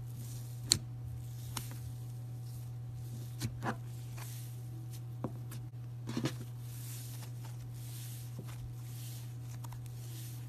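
Thick tan textured slime being pressed and stretched by hand, with scattered sharp crackling pops (the loudest about a second in, a cluster around six seconds) and soft crinkly rustling as it is pulled apart.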